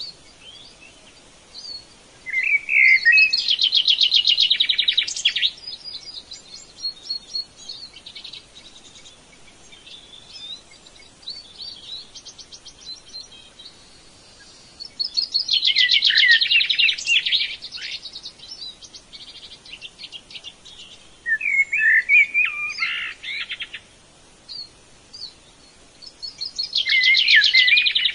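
A songbird singing: four long, fast, trilling song phrases a few seconds each, with quieter twittering chirps between them.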